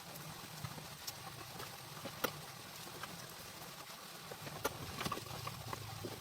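Scattered light clicks and taps, a few a second at most, over a faint steady low hum.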